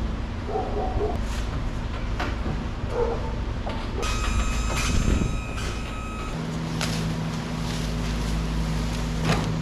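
Steady low rumble of a motor vehicle running, heard from inside. About four seconds in, a steady high beep sounds for about two seconds, and then a steadier low engine hum sets in for the rest.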